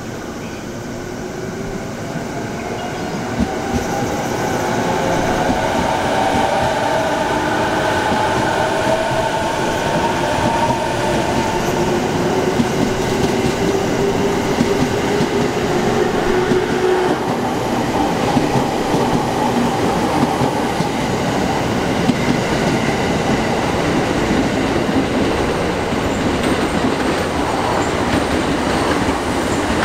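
JR Keiyō Line electric commuter train pulling out of the station and accelerating past, its motors whining upward in pitch over the first dozen seconds or so. The running noise of wheels on rail then goes on steadily as the cars pass.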